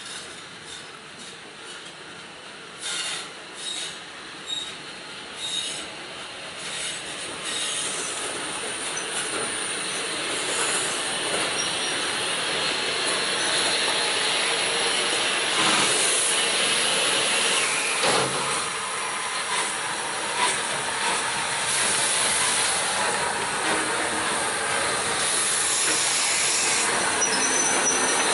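Rebuilt Merchant Navy class steam locomotive 35006 and its coaches running slowly into the platform tender-first, growing louder from about eight seconds in. There is a high wheel or brake squeal now and then as the train draws in.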